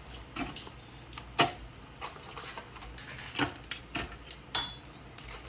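A few scattered sharp clicks and knocks of handling, the loudest about a second and a half in, over a low steady background hum.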